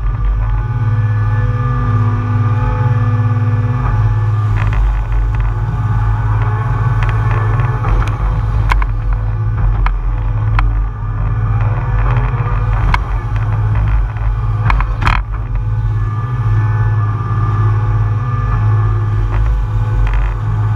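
John Deere 200 excavator's diesel engine running steadily under load while the machine digs and dumps pond mud, with a few sharp knocks from the working machine, the loudest about fifteen seconds in.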